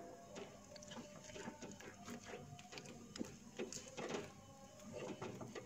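A wooden spatula stirs and scrapes a thick, sticky flour dough in a nonstick frying pan, with irregular soft scrapes and slaps. The dough is cooking down until it stops sticking to the pan.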